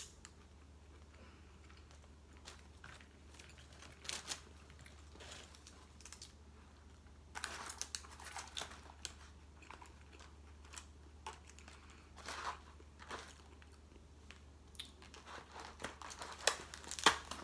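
Eating sounds: a fork and fingers clicking and crinkling in a foil tray of seafood, with chewing, in scattered short clusters. The crackling is densest and loudest near the end, as the crab is picked apart by hand. A steady low hum runs underneath.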